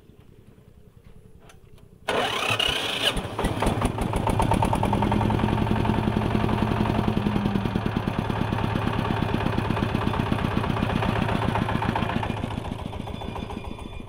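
ACI mini combine harvester's diesel engine cranked on its electric starter about two seconds in, with a brief rising whine. It catches almost at once and runs steadily with a rapid, even knock. Near the end the revs drop and it runs more quietly.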